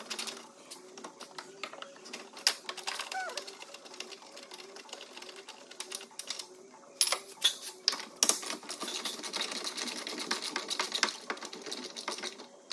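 Hand ratchet clicking in quick runs as 16mm bolts are undone, with a few sharper metal knocks in between.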